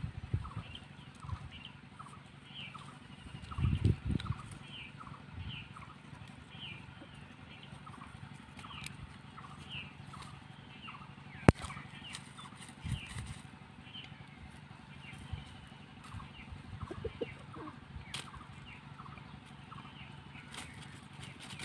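Chickens pecking feed from a clay bowl, with small taps, a brief low rustle about four seconds in and one sharp tap about halfway through. A small bird chirps over and over throughout, about two short calls a second.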